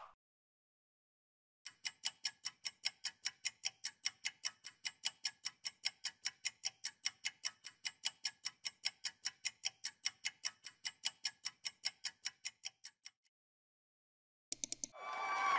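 Ticking-clock countdown sound effect, rapid and even at about five ticks a second for roughly eleven seconds, then stopping. A few quick clicks follow, then a louder sound effect begins near the end.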